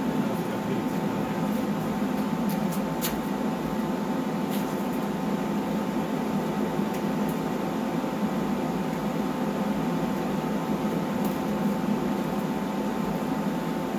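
Downdraft paint booth's extractor fan running steadily: an even low hum with a faint steady tone over it, and a few faint ticks.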